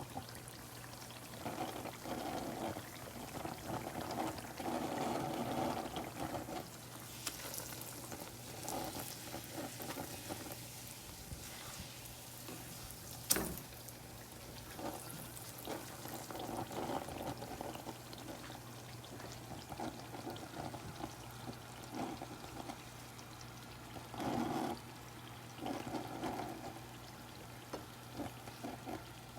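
Hot oil bubbling and sizzling in uneven swells as something is deep-fried, over a steady low hum, with one sharp click about 13 seconds in.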